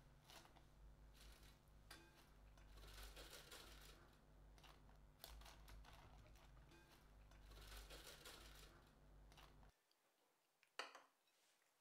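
Faint soft handling sounds as fried lentil dumplings are picked up and set into a glass bowl one after another, over a steady low hum. The hum stops abruptly near the end, and a single sharp click follows.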